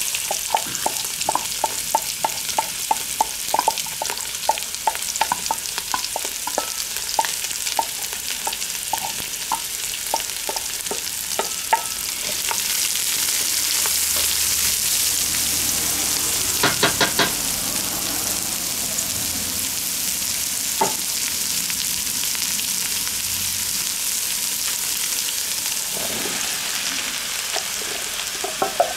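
Diced onions sizzling in clarified butter in a hot cast-iron Dutch oven, stirred with a wooden spatula. The spatula knocks against the pot two or three times a second for the first twelve seconds, then the sizzle grows louder and steadier.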